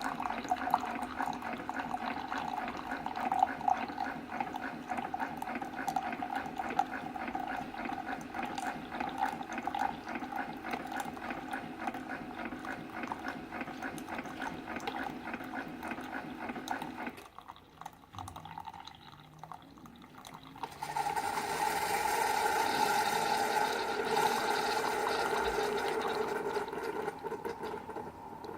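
Keurig 2.0 single-cup coffee maker brewing: its pump runs with a fine rapid pulsing while water and coffee stream into the cup. It goes quieter for a few seconds about two-thirds of the way through, then resumes louder and dies away near the end.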